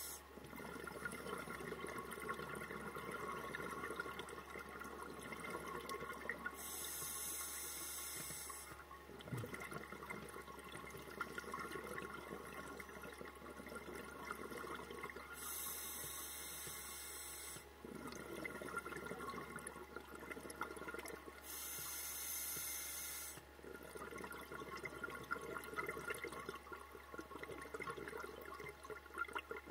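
Scuba diver's regulator breathing underwater: three slow inhalations, each a hiss of about two seconds, with long rushes of exhaled bubbles between them.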